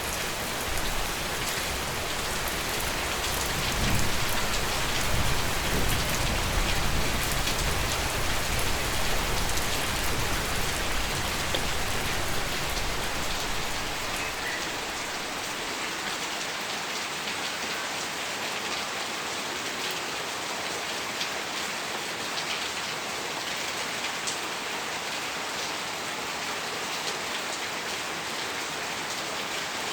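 Steady rain falling: a dense, even hiss with scattered ticks of single drops. A low rumble under the rain in the first half fades out about halfway through.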